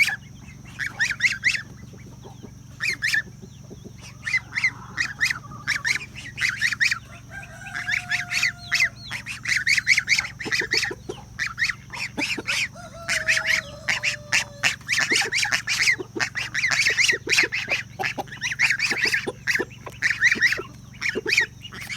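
A group of farm poultry calling over and over, many short calls in quick runs that overlap one another.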